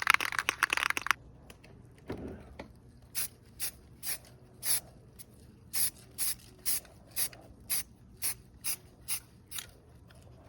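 Aerosol can of rust-preventive primer spraying a continuous hiss that cuts off about a second in. It is followed by a run of short, sharp hissing spray bursts, about two a second, as the coat goes onto the bare sanded metal before filler.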